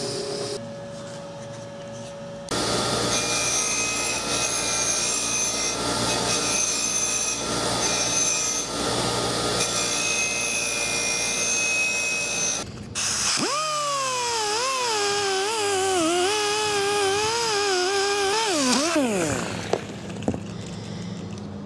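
Power tools cleaning trolling-motor parts. A drill press briefly spins the armature shaft against sandpaper. Then a bench grinder scrubs corrosion off the motor housing in a loud, dense grinding for about ten seconds. After that a motor whine rises, wavers under load and winds down.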